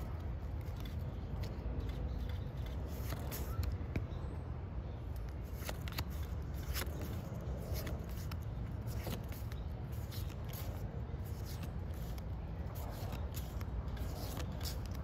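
Pokémon trading cards being handled and flipped through by hand, a run of short papery clicks and slides as each card is moved, over a steady low rumble.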